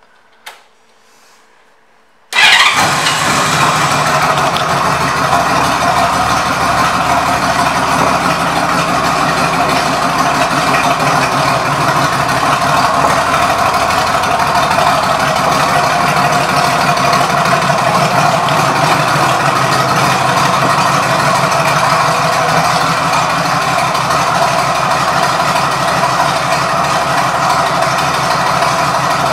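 A 2000 Honda Valkyrie Tour's flat-six engine, fitted with aftermarket exhaust pipes, comes on about two seconds in and then idles steadily.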